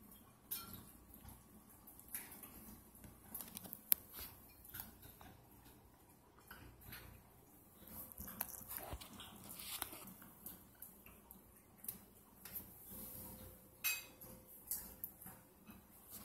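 Irregular light taps and knocks of a baby's hands on a plastic high-chair tray while picking at bits of hard-boiled egg, with one sharper knock about four seconds in.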